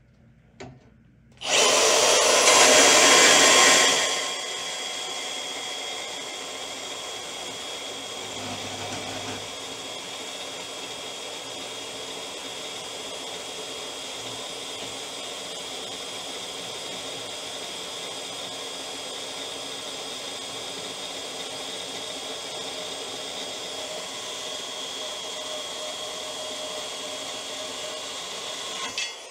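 Milwaukee M18 Fuel Deepcut cordless bandsaw, fitted with a thin 12/14 variable-pitch metal blade, cutting through 1/4-inch hot rolled steel flat bar. It starts about a second and a half in, loudest for the first two or three seconds, then runs steadily through the cut and stops just before the end.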